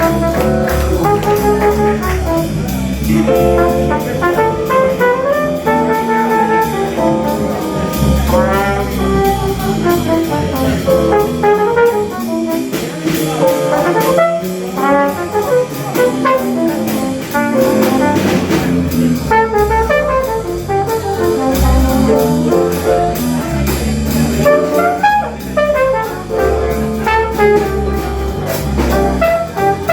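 Live swing jazz band with trumpet, trombones and alto sax playing over piano, bass guitar and drums. The horns carry moving melodic lines over steady cymbal time. The bass drops out for a few seconds near the middle, then comes back.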